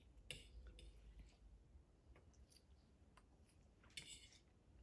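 Near silence broken by a few faint clicks and a brief scrape of forks on ceramic plates as people eat.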